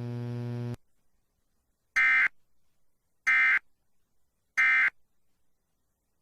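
Three short bursts of EAS digital data tones, the SAME end-of-message code, each about a third of a second long and about 1.3 s apart, marking the end of the emergency alert. Before them, a steady electrical hum cuts off under a second in.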